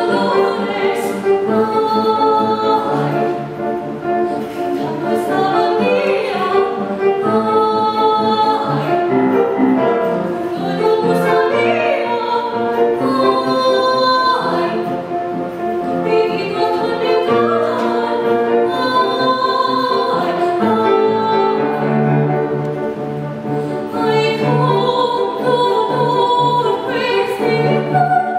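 A woman's classical soprano voice singing an art song or aria, holding long notes, accompanied by a grand piano playing repeated low notes.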